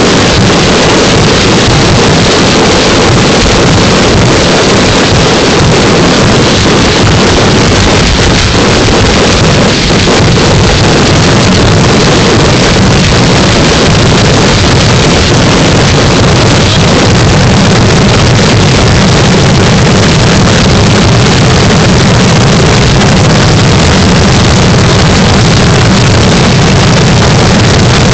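Fireworks grand finale barrage at close range: shell bursts so dense they merge into one continuous, overloaded rumble with no gaps between explosions.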